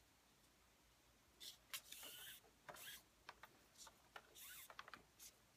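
Faint rustling and scraping of cord being drawn through the weave of a knot on a pinned mandrel, in short strokes with a few light clicks, starting about a second and a half in.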